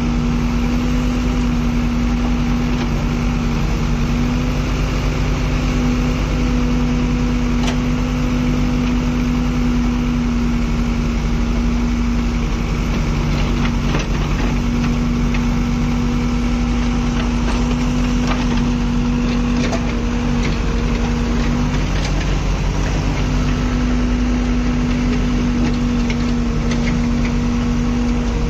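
JCB backhoe loader's diesel engine running steadily under hydraulic load while the backhoe digs, with a few short sharp knocks of stone and bucket.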